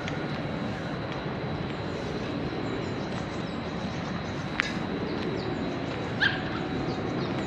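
Steady outdoor city-park ambience of distant traffic and people, with a sharp click about four and a half seconds in and a short high yelp, like a dog's, about six seconds in.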